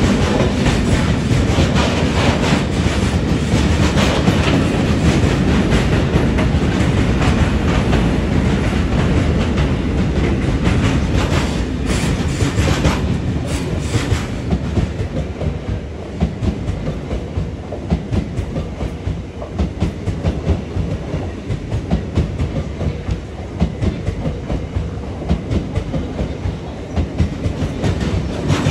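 Transfer train with a towed NS ICNG electric unit and a freight wagon passing close by: continuous wheel rumble with rapid clickety-clack over the rail joints, loudest over the first half and easing, more uneven, later on.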